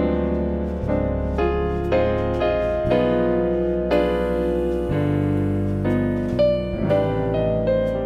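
Background piano music: a slow melody of single notes, about two a second, over sustained low chords.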